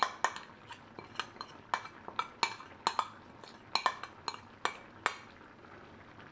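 A metal spoon clinking and scraping against a ceramic bowl as a thick sour-cream and garlic mixture is scraped out, about a dozen quick ringing taps that stop about five seconds in.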